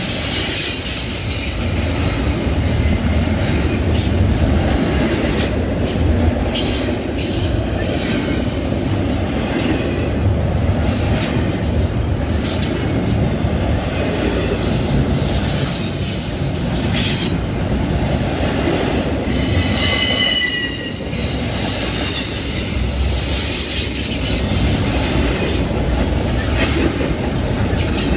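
Norfolk Southern freight train rolling past, its steel wheels rumbling and clicking on the rail with bits of squeal. About twenty seconds in, a wheel lets out a short high squeal with several pitches at once.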